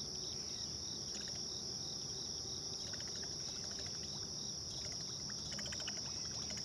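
A dawn chorus of crickets and other insects: a steady high-pitched trill with a second, pulsing chirp beneath it. A few faint runs of ticking come and go, loudest near the end.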